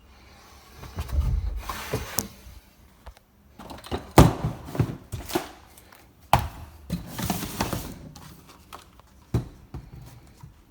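Irregular knocks, clunks and rustling from plumbing parts and hose being handled in a confined space, with a last single knock near the end.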